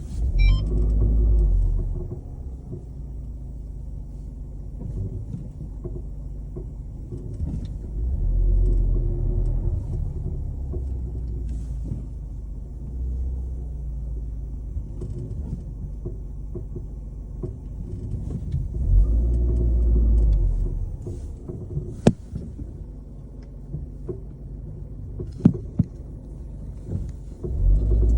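Car underway with a low rumble that swells and fades several times, broken by a few sharp clunks, the loudest past the middle and a quick pair later on. The clunking is the car's noise, tagged as a suspension fault.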